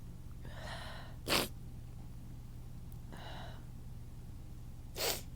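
A woman sneezing twice. Each sneeze is a short sharp burst that comes right after a breathy, gasping intake of breath, the second one near the end.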